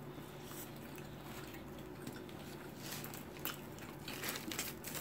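Chewing and mouth sounds of people eating pastrami sandwiches: scattered soft smacks and clicks, over a steady low hum.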